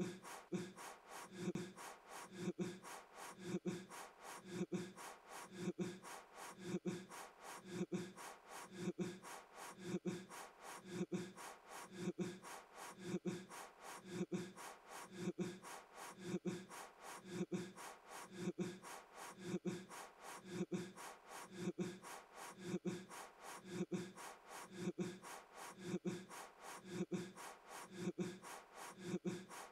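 A man blowing at a candle in short, forceful puffs of breath, about one a second, repeating evenly.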